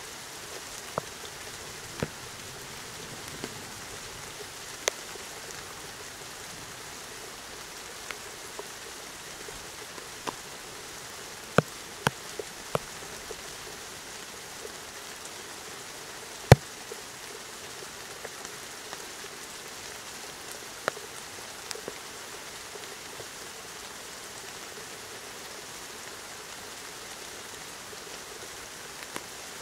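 Steady rain falling, a continuous hiss with scattered sharp taps of single drops, a few of them louder, the loudest a little past halfway.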